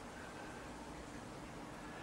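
Faint steady background hiss with no distinct event.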